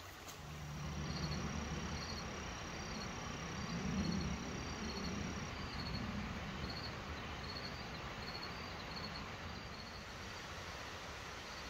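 Crickets chirping in short, evenly spaced pulses, a little more than one a second. A low rumble swells over the first few seconds and fades away, and a thin steady high tone sounds over the first half.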